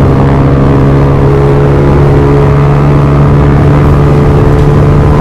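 Honda Aviator scooter's single-cylinder engine running at a steady cruising speed, heard from the rider's seat, with wind rushing over the microphone.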